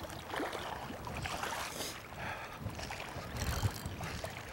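River water running, with wind buffeting the microphone.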